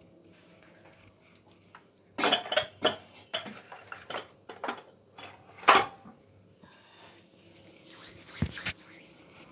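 Steel kitchen utensils and dishes clinking and clattering as they are handled: a string of separate sharp knocks, the loudest a little after the middle, with a short flurry near the end.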